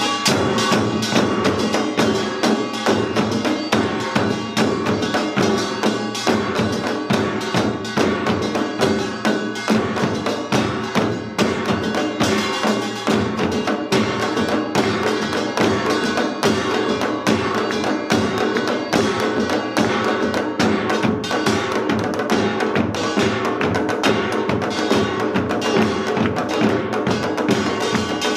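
Korean samul nori ensemble playing Yeongnam rhythm: a dense, steady stream of drum strokes from hourglass drums (janggu) and barrel drums (buk) under the bright clanging of a small brass gong (kkwaenggwari).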